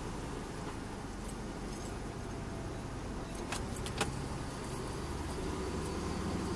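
Volvo VM truck's diesel engine running steadily at low speed, heard from inside the cab as a low rumble, with the cab rattling on a rough dirt road. A few sharp rattling clicks come about three and a half to four seconds in.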